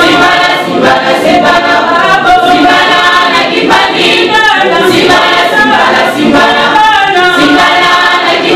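Women's choir singing a gospel song together, many voices at once and continuous.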